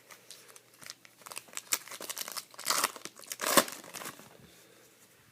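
A foil trading-card pack being torn open and its wrapper crinkled, a run of crackles and rips with two louder tears near the middle.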